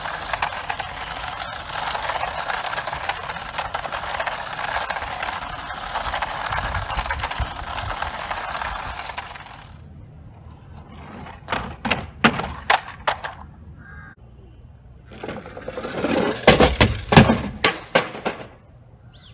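A toy car's plastic wheels rolling over stone paving with a steady gritty rasp for about ten seconds. Then come scattered sharp clicks and clattering knocks of the toy car on hard surfaces, the loudest cluster near the end.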